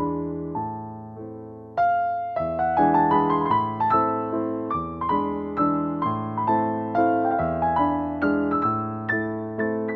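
Background piano music: a gentle melody of struck notes that each ring and fade, growing fuller and louder about two seconds in.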